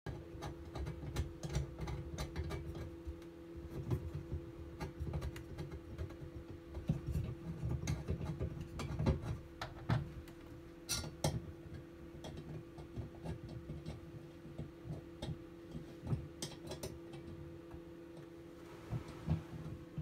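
A recessed toilet paper holder being pushed, wiggled and seated by hand into its wall cutout: irregular small clicks, taps and knocks with low handling rumble, over a steady hum.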